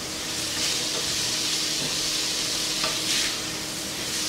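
Chopped tomato, meat and onion sizzling as they fry in a pressure cooker pot while a spoon stirs them; the sizzle swells about a second in and again near three seconds.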